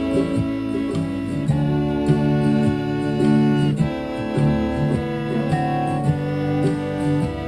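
Fiddle playing long bowed double stops on the G and D strings, changing with the chords, over a country backing track with strummed acoustic guitar.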